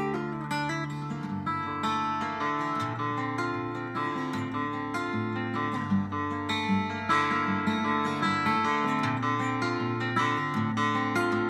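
Solo acoustic guitar played fingerstyle: a plucked melody with ringing notes over a bass line played at the same time.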